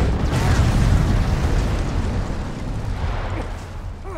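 Large explosion blowing apart a timber building: a heavy rumbling blast that swells in the first second and then slowly dies down.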